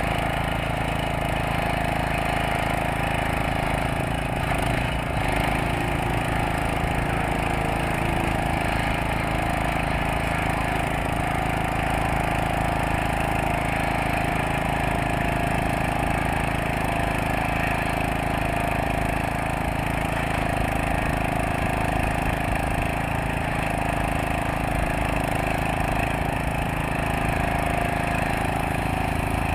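Petrol-engined rail grinder running steadily, its abrasive wheel grinding the head of a steel rail to finish a fresh weld, with sparks flying. The small engine and the grinding of wheel on steel form one unbroken sound.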